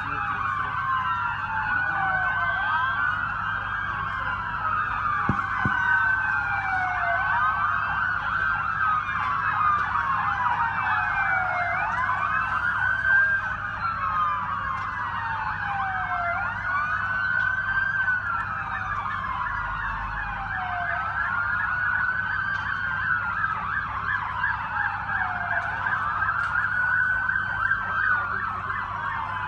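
Several emergency-vehicle sirens wailing at once, their pitches sweeping up and down out of step with one another.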